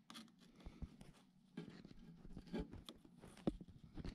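Faint scattered clicks, knocks and short scrapes of handling among the metal parts of an antique cash register's seized mechanism.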